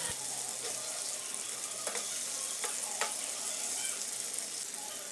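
Marinated quail pieces sizzling steadily as they shallow-fry in hot oil in a pan. A few faint clicks come around the middle as a spoon turns the pieces over.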